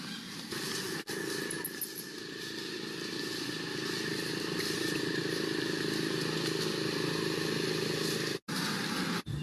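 A steady engine hum from a motor vehicle running. The sound cuts out briefly about a second in and twice near the end.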